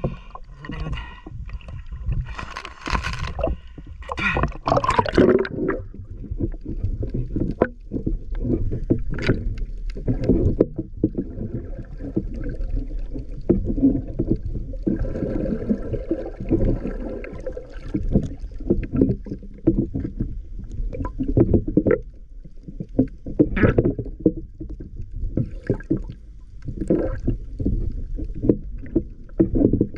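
Muffled underwater water noise: an irregular low rumbling wash with knocks and sloshing as the snorkeler moves through shallow water, with a few brief louder surges.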